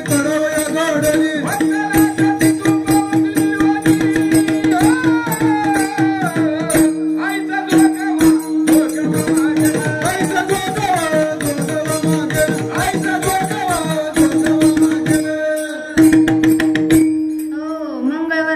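Devotional kirtan music: a sung melody over a steady held drone note, with drum and rapid cymbal strokes keeping a fast beat. The music thins out near the end.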